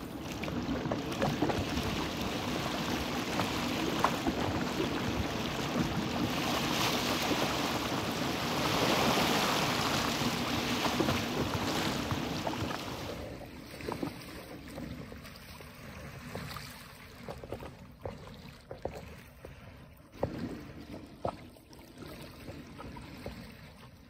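Wind rushing over the microphone and sea water lapping, loud and steady for about the first half, then quieter, with scattered small knocks.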